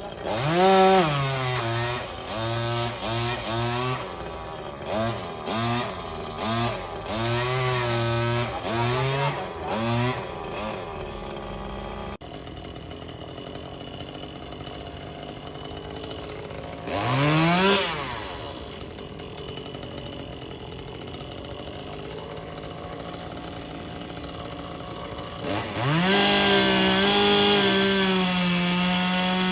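Chainsaw engine revved up and down in many short bursts, then running lower with one brief rev in the middle. It holds a steady high pitch at full throttle for the last few seconds.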